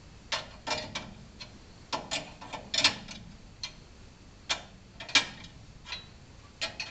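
Sharp metallic clicks and clinks in short irregular clusters, about one cluster a second, from tools working a coil spring compressor onto a truck's front coil spring.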